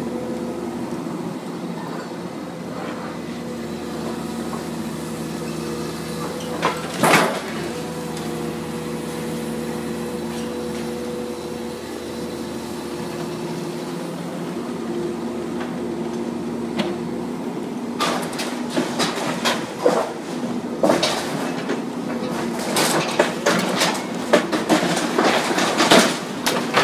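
Komatsu hydraulic excavator's diesel engine running steadily, with one loud crash about seven seconds in. From about eighteen seconds on comes a string of crashes and clattering as the bucket tears into the building's steel framing, roofing and walls and the debris falls.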